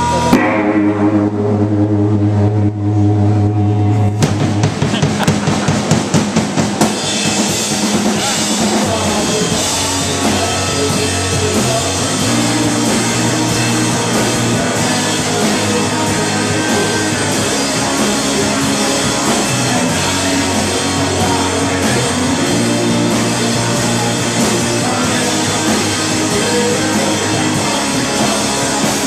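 Live rock band of electric guitar, electric bass and drum kit starting a song. A chord is held for the first few seconds, a quick run of drum hits comes in about four seconds in, and then the full band plays the instrumental intro.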